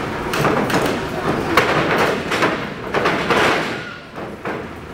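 Wrestlers' bodies hitting the ring: a series of thuds and slams on the ring mat and boards during the grappling, with a quieter stretch near the end.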